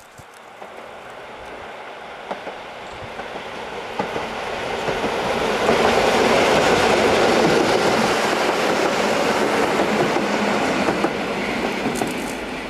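EN57 electric multiple unit approaching and passing close by, its wheels clacking over rail joints. The running noise swells to a peak about halfway through and eases off towards the end.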